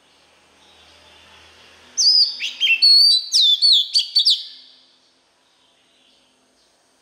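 Male oriental magpie-robin singing: a loud burst of quick, clear whistled notes that slide up and down, starting about two seconds in and lasting about two and a half seconds.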